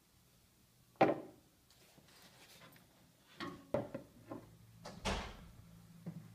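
A sharp knock about a second in, then a quick run of clicks and knocks and a short scraping rustle near five seconds, as things are handled.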